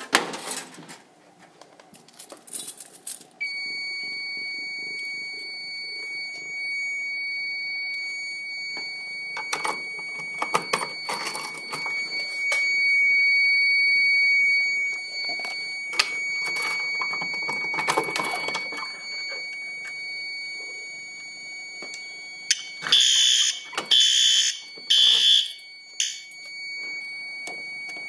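Fire alarm system sounding during a test: a steady high-pitched alarm tone comes on about three seconds in and holds. Near the end an alarm horn sounds three loud blasts about a second apart, the temporal-three evacuation pattern.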